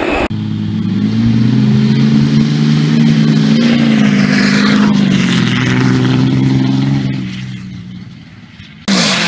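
Full-size pickup truck engine running hard as the truck launches across grass, spinning its tyres: a steady low engine drone that fades away over the last couple of seconds as the truck pulls into the distance. A louder engine cuts in abruptly near the end.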